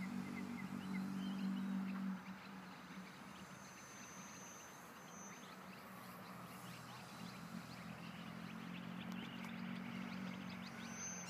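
E-flite Leader 480 electric RC plane flying past: a steady propeller and motor drone, loudest in the first two seconds, fading as the plane moves away, then building again near the end. Small birds chirp repeatedly throughout.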